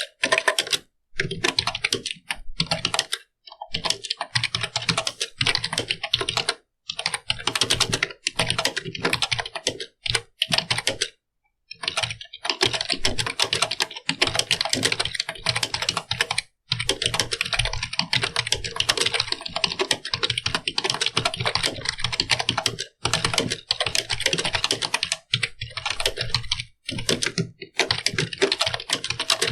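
Computer keyboard being typed on: fast runs of key clicks broken by brief pauses.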